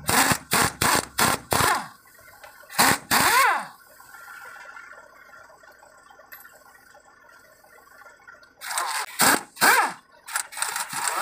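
Pneumatic impact wrench hammering on a truck's wheel nuts in short bursts, each with the air motor's whine rising and falling. There is a quick run of bursts at the start, two more about three seconds in, then a quieter pause and another run of bursts near the end.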